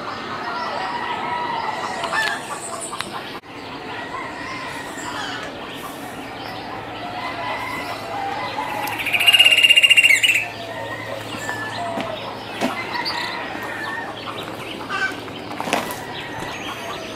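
Morning birdsong: many birds chirping and calling at once. A loud, high, held call of about a second and a half stands out near the middle.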